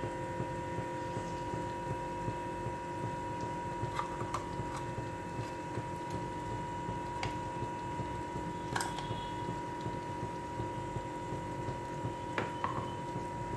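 Steady background hum with a constant high tone, and a handful of faint, short clicks scattered through it.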